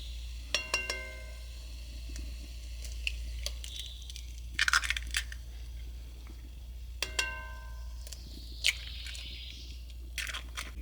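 Glass jars clinking as they are handled, each clink ringing briefly, a few seconds apart. Short rustling, crunching noises come between the clinks.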